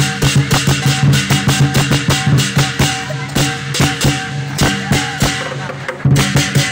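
A lion dance percussion band plays a fast, driving beat: a drum with clashing hand cymbals, the strokes coming several times a second. The beat eases off briefly near the end, then picks up again.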